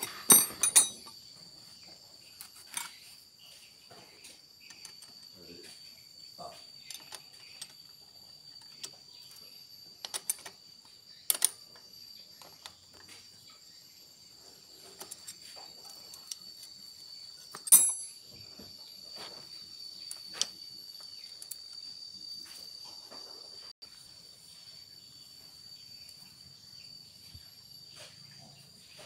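Scattered metallic clinks and taps of hand tools and engine parts being handled during motorcycle engine reassembly, a few of them sharp and ringing, the loudest near the start and about eighteen seconds in. Under them runs a steady high-pitched trill of crickets.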